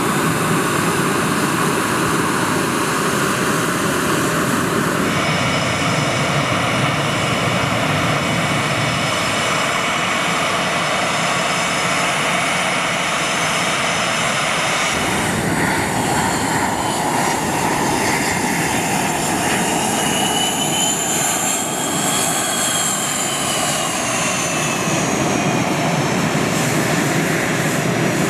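A McDonnell Douglas F/A-18 Hornet's twin General Electric F404 turbofan engines running at taxi power, a steady whine over a rushing rumble. The sound changes abruptly about five and fifteen seconds in. A little past the middle, a high whine rises and then falls in pitch.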